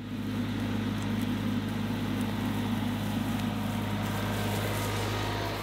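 Compact loader tractor's engine running at a steady, unchanging pitch as the tractor drives across the field.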